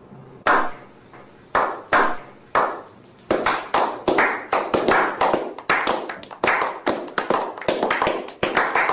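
A slow clap: single hand claps about a second apart, each with a short echo, then others join and the clapping quickens into brisk applause by a small group about three seconds in.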